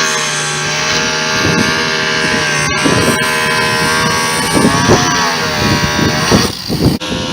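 A small motor running steadily with a whine, its pitch dipping and bending a few times, and a brief dip in level near the end.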